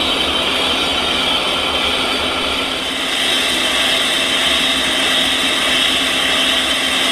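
Metal lathe running with a brazed tool bit feeding along the outside diameter of the workpiece, taking a turning cut. A steady machine hum under a constant hiss of cutting, a little louder about three seconds in.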